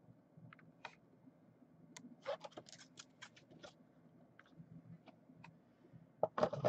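Faint, scattered light clicks and taps from hands working at a desk, with a cluster a couple of seconds in and a louder group near the end.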